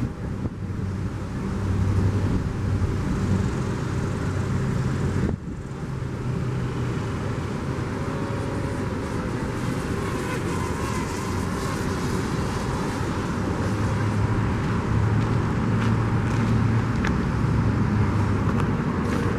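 Road traffic: car engines running and vehicles passing, with no siren sounding. The sound cuts out briefly about five seconds in.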